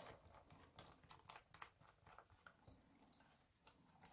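Faint scattered clicks and light taps: small screws being placed into a laptop's bottom cover and the cover being handled.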